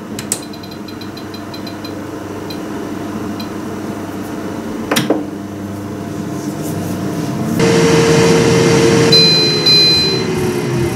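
Philips air fryer running with a steady fan hum, its control dial giving a quick run of short high beeps as it is turned and set for cooking. There is a single click about five seconds in. Near the end the fan noise is louder, with a slowly falling tone and two more short beeps.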